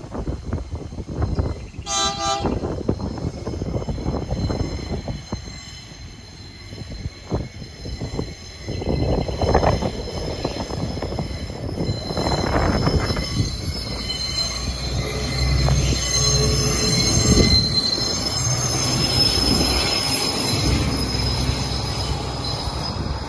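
Sugarcane train's diesel locomotive gives one short horn blast about two seconds in, then draws near and passes, its engine running. The wheels of the empty cane bins squeal in high, steady tones as the train goes by, loudest near the end.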